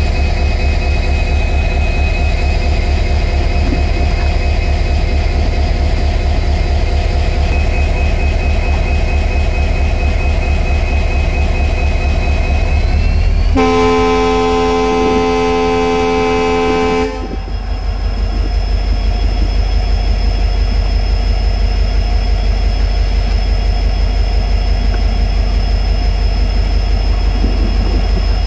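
WDP4B diesel-electric locomotive's 16-cylinder two-stroke EMD engine running with a heavy, even throb. About halfway through it gives one long blast on its air horn, a chord of several tones lasting about three and a half seconds. Then the engine throb resumes as the train gets under way.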